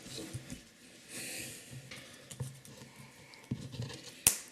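Faint handling noises as a child fumbles with a plastic Kinder Joy egg, with a soft hiss about a second in and a sharp click near the end.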